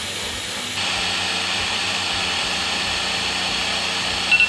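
Ninja blender motor running steadily as it blends hemp seeds into water, growing louder about a second in. Near the end a phone timer starts beeping.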